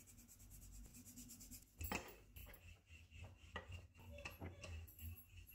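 Wooden rolling pin rolling out a stuffed paratha on a bamboo board: faint knocks and rubbing. The knocks start about two seconds in, the loudest of them first.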